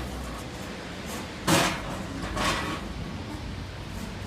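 A sharp knock about a second and a half in, followed by a softer knock about a second later.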